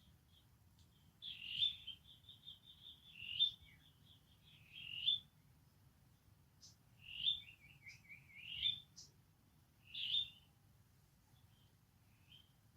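High-pitched animal chirping calls: short chirps repeated every second or two, some running into quick trills of rapid notes, over a faint low rumble.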